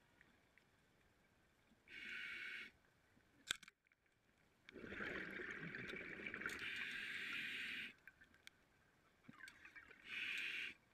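Underwater breathing through a scuba regulator: three bursts of hissing and bubbling with quiet gaps between them, the middle one about three seconds long. About three and a half seconds in, a single sharp crack as a band-powered speargun fires.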